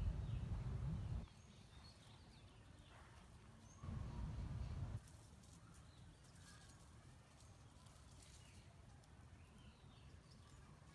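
Faint outdoor ambience with scattered short high chirps and a few light clicks, broken twice by a low rumble on the microphone: once until about a second in, and again for about a second near the four-second mark.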